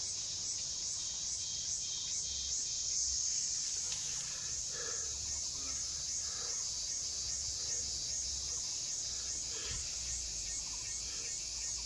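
Steady high-pitched insect chorus, like crickets or cicadas, droning without break with a faint regular pulse. A few faint short calls sound lower down about halfway through.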